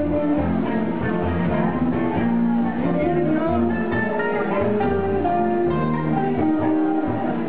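Swing jazz band playing in a club, with plucked strings and guitar over a steady line of low bass notes.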